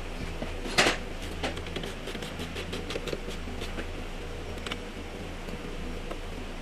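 Small clicks and taps of a hand tool and fingers working at the bare inner steel panel of a GMC Tahoe door, with one sharper clatter about a second in, over a steady low hum.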